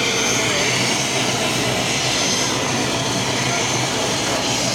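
Helicopter's turbine engines and rotor running steadily on the ground: a loud, even high whine over a low drone.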